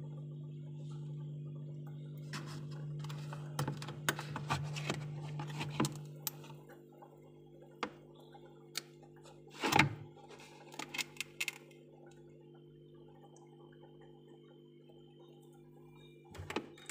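Hard clicks and knocks from a thick block of frozen ice being handled, with the loudest a single thunk about ten seconds in. Under them a steady low hum weakens about six seconds in.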